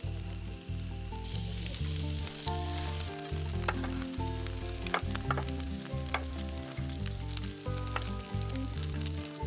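Food sizzling on a Blackstone griddle, a steady hiss with scattered sharp clicks, over background music with low notes changing about twice a second.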